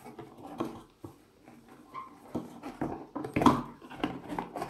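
Cardboard game box being handled and shifted on a wooden table: soft scrapes and light knocks, getting louder and busier in the last couple of seconds.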